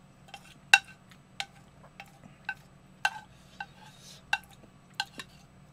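Wooden chopsticks clinking against a white bowl, about a dozen irregular light taps each with a short ring, the loudest about a second in, as noodles are picked from the bowl.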